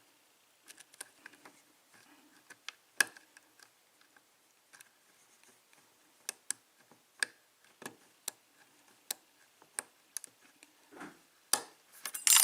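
Scattered light metallic clicks of a lock pick working the pins of a modified EVVA euro cylinder lock, irregular and a second or so apart, with a quick cluster of louder clicks near the end.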